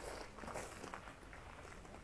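Footsteps crunching on gravel, a few uneven steps.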